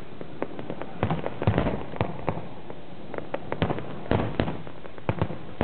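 Aerial fireworks bursting: many sharp bangs and pops at an irregular pace, coming in quick clusters about one and a half and four seconds in.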